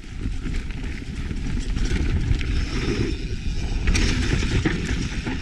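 Mountain bike riding down a rough trail: a continuous low rumble of wind and tyres on dirt, with scattered clicks and rattles from the bike over roots and rocks, growing louder over the first couple of seconds.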